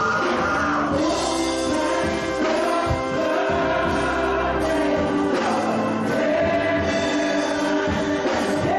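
Gospel choir singing with instrumental backing, voices holding long notes.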